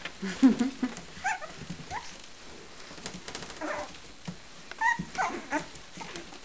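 Six-week-old Shichon puppies giving a handful of short, high-pitched puppy calls while playing, some rising in pitch, with several close together about five seconds in.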